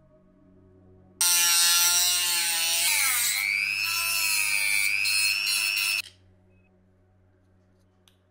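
Small pen-shaped handheld electric tool whirring at a high pitch for about five seconds. It starts suddenly about a second in, dips in pitch briefly midway, settles again, and cuts off abruptly.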